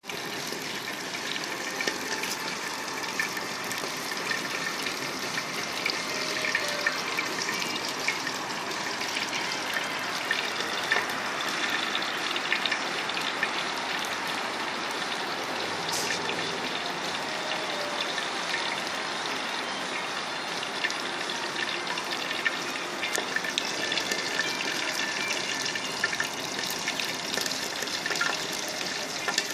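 Drip-feed waste oil burner of a water heater running: a steady rushing flame noise with frequent small crackles.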